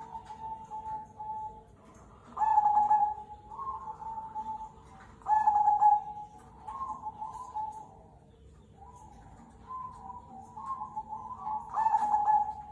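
Perkutut (zebra dove) cooing. Soft, stepped notes lead into a louder, held coo, a phrase heard three times.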